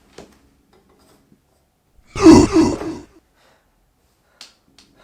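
A loud human vocal outburst lasting about a second, a little over two seconds in, not words. Two faint clicks follow near the end.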